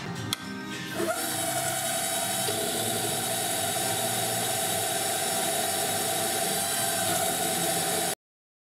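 Wabeco F1200 milling machine's spindle motor starting up about a second in and then running with a steady whine while a small twist drill bores into the valve chest of a Stuart No.1 steam engine. The sound cuts off suddenly near the end.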